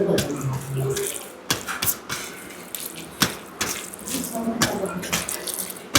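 Wet, squelchy eating sounds: rice and dal being mixed and eaten, with many short sharp smacking clicks.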